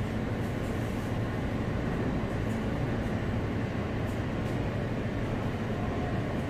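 Steady low rumble and hum of an R160 subway train standing at the platform with its doors open, with a few faint light ticks.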